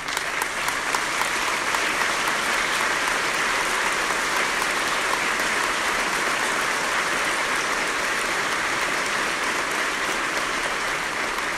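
Large audience applauding steadily, a sustained clapping from a big hall crowd recognizing people who have stood.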